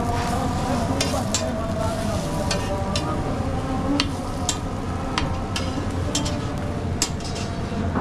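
Anda shami burger fillings frying on a street-stall griddle, with irregular sharp taps as the food is worked and turned. A steady low hum runs underneath.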